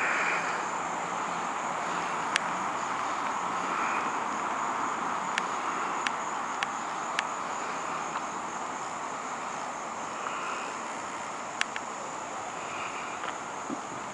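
A steady rushing noise under a continuous high, evenly pulsing chorus of insects, with a handful of sharp clicks scattered through it.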